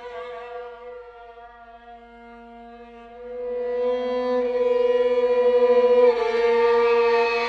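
Film-score music: sustained bowed-string notes held on two pitches, swelling louder about three seconds in and brightening near the end.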